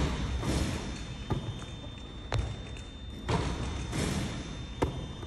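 A basketball thudding and bouncing in a gym: about six separate impacts roughly a second apart as shots strike the rim and backboard and drop into the net of a Shoot-A-Way rebounding machine, each echoing briefly.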